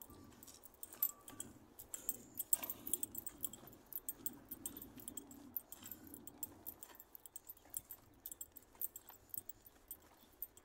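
A bunch of keys jangling with the walker's steps: many small, irregular metallic chinks.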